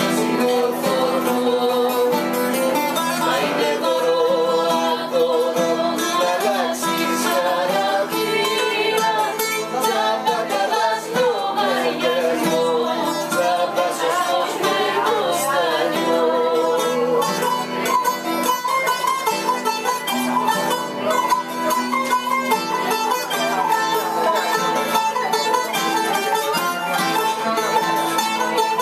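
Live acoustic ensemble playing: a bowl-backed lute, a trapezoidal table zither and an acoustic guitar plucked together, with a woman's voice singing over them.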